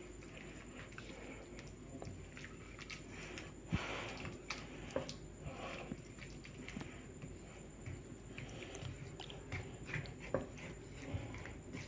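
Tomato soup simmering in a pot, with faint, irregular soft pops and blips.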